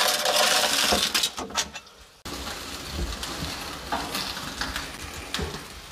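A baked sturgeon sizzling and crackling in a hot metal baking tray. The sizzle fades and cuts off about two seconds in, followed by quieter clinks and knocks as the tray is handled.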